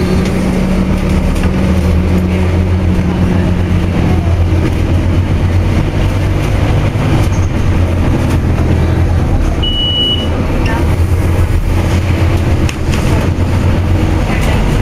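Scania OmniCity double-decker bus's engine running as the bus drives, heard from the upper deck, with a higher engine note fading out about four seconds in. About ten seconds in, a single short high beep of the stop bell sounds.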